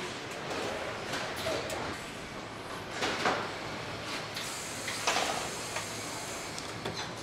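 Car-factory assembly-line background noise heard from inside the car's cabin, with a few short clunks and rustles, the loudest about three seconds in and again about five seconds in, as workers reach in to fit parts.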